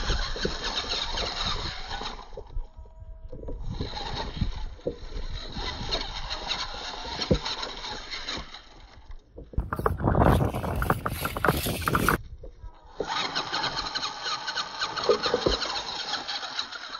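RC rock crawler's motor and geared drivetrain whining in three long runs, cutting out briefly about two seconds and about nine seconds in, with knocks of tyres and chassis against the rocks. About ten seconds in, a loud rushing noise for around two seconds.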